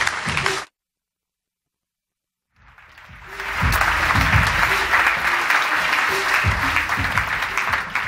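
Audience applauding, swelling in after about two seconds of dead silence near the start and then holding steady, with music playing underneath.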